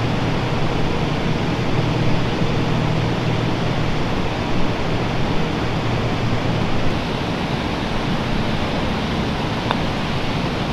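Steady rushing noise. A low hum under it drops away about two-thirds of the way through, and there is a single faint tap near the end.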